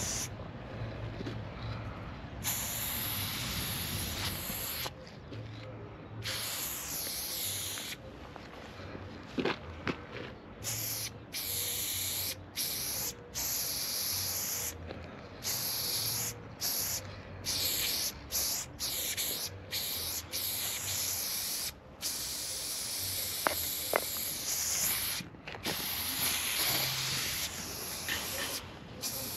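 Aerosol spray paint can hissing in repeated bursts of one to three seconds, stopping and starting as strokes of paint are laid onto a wall. A couple of sharp clicks come about two-thirds of the way in.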